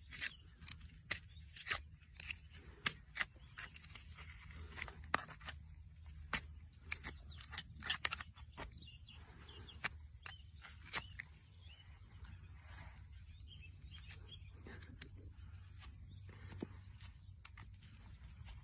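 A hoof pick scraping and prying packed dirt out of a horse's shod hoof: irregular sharp scrapes and clicks, coming thick and fast at first and thinning out after about ten seconds.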